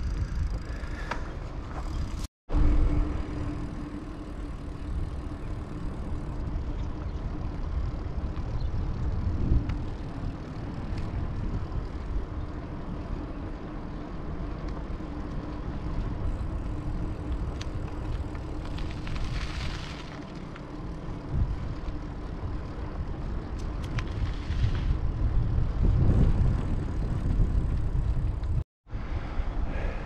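Wind buffeting the microphone while riding a bicycle, with a steady hum underneath.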